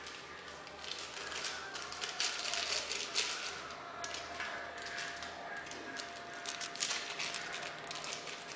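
Irregular crinkling, rustling and light clicks of hands handling kitchen things, such as a seasoning sachet being emptied into the pot.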